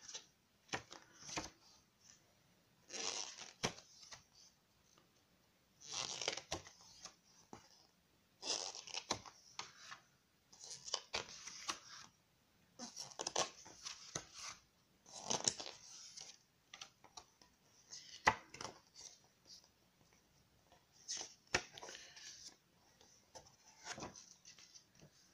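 Pages of a printed paper booklet turned by hand one after another, a short papery rustle and flick about every two seconds.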